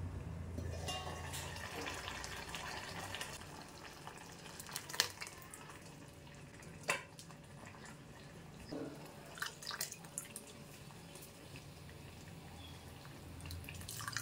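Pot of sesbania-leaf sambar simmering: scattered bubbles popping over a steady low rumble. Liquid splashes in at the very end.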